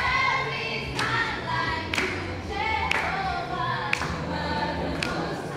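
A group of voices singing together, with hand claps keeping time about once a second.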